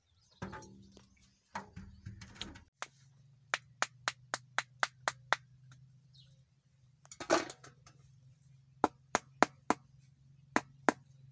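Sharp knocks in quick runs of three or four a second as coconut-shell moulds are tapped to loosen and release set palm jaggery (karuppatti) cakes. A single louder, fuller sound comes about seven seconds in, and a faint steady low hum runs underneath.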